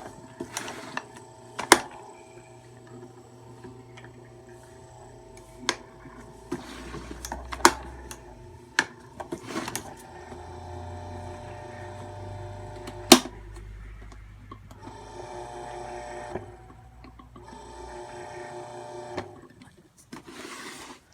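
Marubishi CF 16DF electric fan making an unusual buzzing noise with occasional sharp rattling clicks. The owner takes this as abnormal. The buzz breaks off and resumes a few times in the second half.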